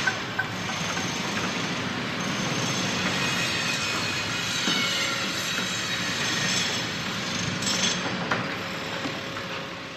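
Construction-site ambience: a steady mechanical rumble and hiss with a few sharp metallic knocks and faint high squeals, fading out near the end.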